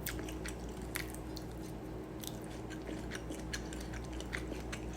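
Someone chewing a bite of dry-sautéed chicken of the woods mushroom: irregular small wet clicks and smacks of the mouth.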